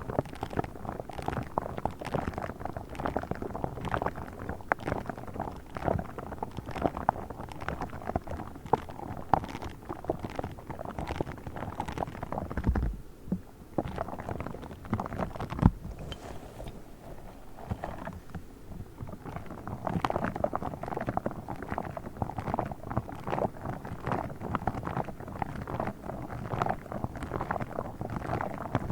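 Close-miked ASMR handling of a pink star-shaped object: a dense, unbroken stream of quick crackly scratches, taps and rubbing, with a couple of soft low thumps about 13 and 16 seconds in.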